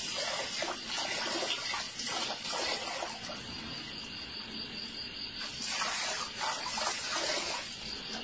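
Water running from an outdoor tap and splashing into a metal bowl, a steady trickle with small irregular splashes.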